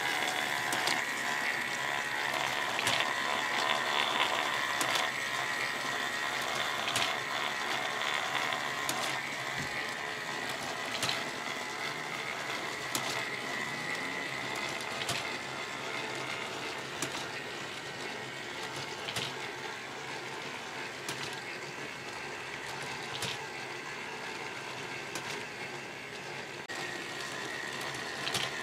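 A K'NEX parts feeder running: plastic gears, rods and connectors turning, driven by one electric motor. A steady whine sits under the mechanism's rattle, with a sharp click about every two seconds.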